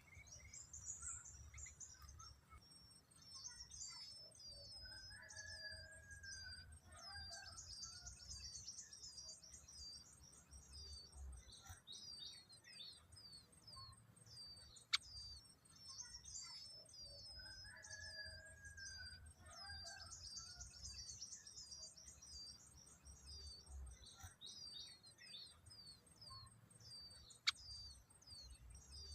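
Small birds chirping in quick, high-pitched runs throughout, with a lower warbling phrase about five seconds in and again about eighteen seconds in. Two sharp clicks, one about halfway through and one near the end, are the loudest sounds.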